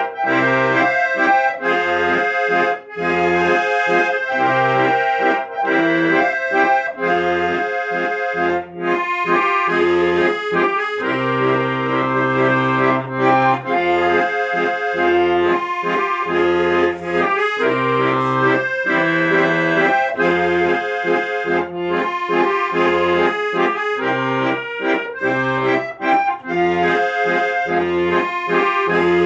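Accordion playing a tune over a pulsing bass-and-chord accompaniment.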